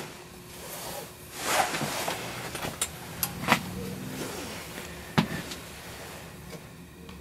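Handling noises at a shotshell reloading bench: clothing rustling, several sharp clicks about three seconds in, and a single sharper knock a couple of seconds later.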